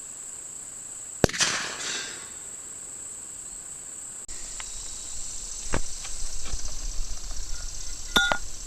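A single gunshot from a .357 Magnum hunting load, a sharp crack with a brief echo about a second in. Crickets chirp steadily, and a few faint clicks follow later.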